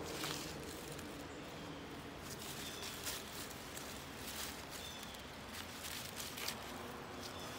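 Dry fallen leaves and grass rustling and crunching in short, scattered bursts as two coonhounds sniff and paw through them.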